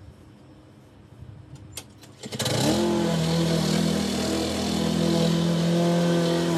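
A few short clicks, then the Craftsman push mower's Briggs & Stratton single-cylinder four-stroke engine starts about two and a half seconds in, revs up over half a second and settles into steady running.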